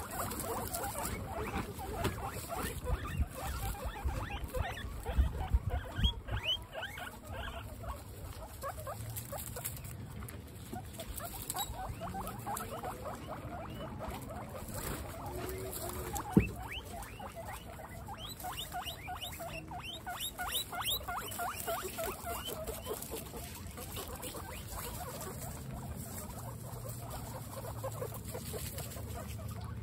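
Guinea pigs squeaking in quick runs of short repeated calls, with rustling and patter as they move through straw hay. Low thumps come in the first few seconds, and a single sharp click about halfway through.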